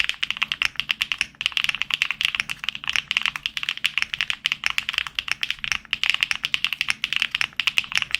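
Mechanical keyboard, a Neo65 fitted with HMX Cloud switches, being typed on quickly: a fast, continuous run of keystroke clacks with a couple of brief pauses.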